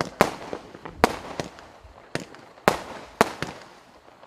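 Benwell "Black Hole" 25-shot firework cake firing, about eight sharp bangs at uneven spacing, roughly two a second, each trailing off briefly.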